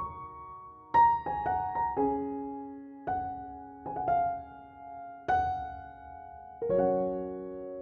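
Slow, gentle piano background music: single notes and chords struck about once a second, each left to ring and fade.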